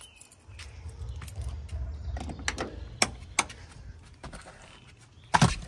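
Keys jangling with a few sharp clicks, then a louder knock near the end, over a low steady rumble.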